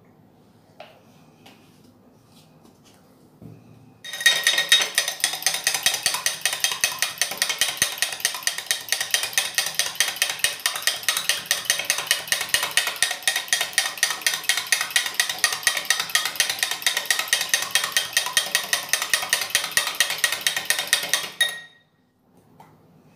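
Metal spoon stirring coffee in a tall drinking glass, clinking rapidly and evenly against the glass with a bright ringing. The clinking starts about four seconds in and stops abruptly near the end.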